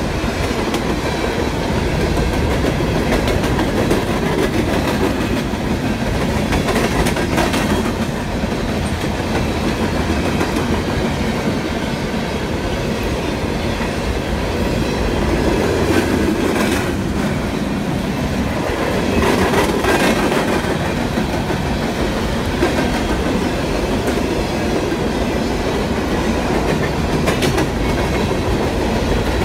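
Freight cars of a coal train rolling past: a steady rumble and rattle of steel wheels on rail, with occasional sharp clacks.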